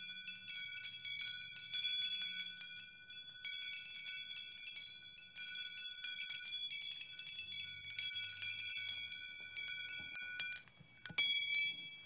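Metal wind chimes ringing, struck many times in quick succession so their high tones overlap densely, then falling away about ten and a half seconds in, with a couple of single strikes near the end.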